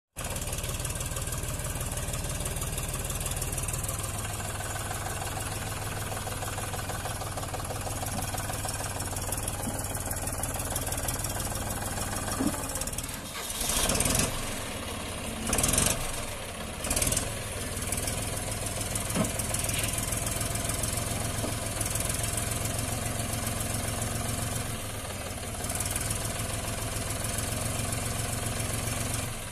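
John Deere 5105 tractor's three-cylinder diesel engine running steadily under light load, with a few short loud bursts of noise about halfway through.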